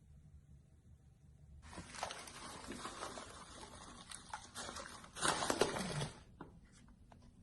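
Slime being squished and pressed by hand: dense wet crackling with many small pops, starting about two seconds in and loudest near the end, then a few faint clicks.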